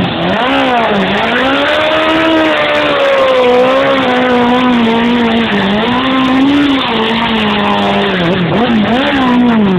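Suzuki GSX-R 750 SRAD's inline-four engine held at high revs during a burnout, its rear tyre spinning and squealing on the road. The revs waver, dipping briefly about a second in and several times near the end.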